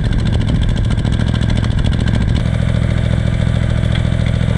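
A small engine running steadily at idle, its note shifting slightly about two and a half seconds in.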